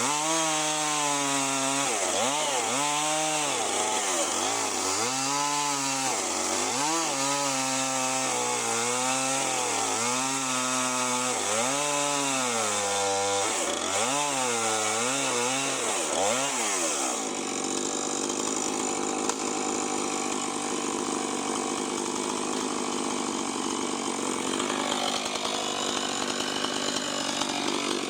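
Husqvarna 450 Rancher two-stroke chainsaw with a 20-inch bar ripping lengthwise through a big black oak log. For the first two-thirds its engine pitch repeatedly sags and recovers every second or so as the chain bogs under load in the cut; after that it runs steadier.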